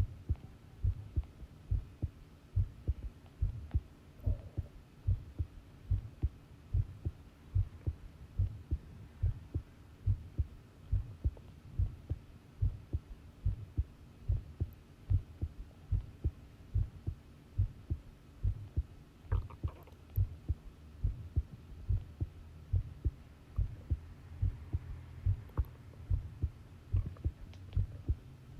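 Human heartbeat recorded close up: a steady, even run of low lub-dub double beats.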